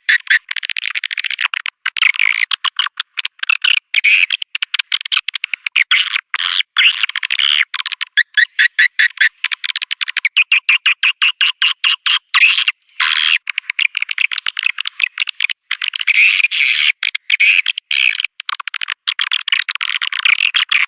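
Swiftlet lure call (suara panggil walet): a recording of edible-nest swiftlets chattering, played to draw swiftlets into a nesting house. Fast buzzy trills and rapid clicking chirps come in bursts broken by short gaps, all high-pitched with no low sound.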